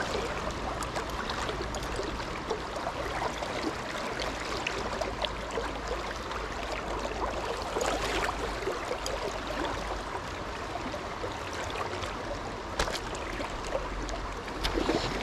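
Fast-flowing river water rushing steadily, with a couple of faint ticks.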